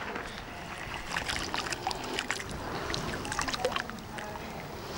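Faba beans soaking in water in a metal pot, stirred by hand: light clicking and sloshing.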